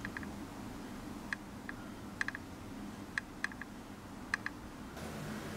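Scattered light clicks and taps, about ten in all, some coming in quick pairs or threes, over a steady low hum.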